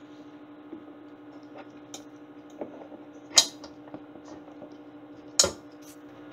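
Plastic power-cord connector being handled and pushed into the socket at the base of an electric multicooker: small scattered clicks and two sharp, loud clicks about two seconds apart, over a steady background hum.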